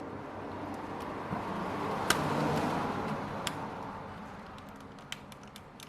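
Plastic back shell of a Nintendo Switch Lite being pried open along its seam: a scraping, rustling noise swells and fades, with two sharp clicks about two and three and a half seconds in as clips let go.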